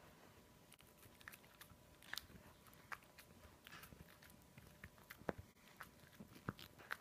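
Boston terrier gnawing and tearing at a boiled pork rib. There are faint, scattered clicks and smacks of teeth on meat and bone, a few of them sharper in the second half.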